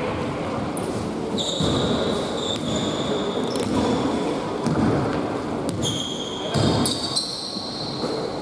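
A basketball bouncing on a hardwood gym floor, with sneakers squeaking on the boards in a large, echoing sports hall.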